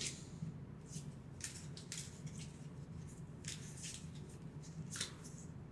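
Faint rustling and scattered light clicks of a freshly opened pack of game cards being handled and sorted.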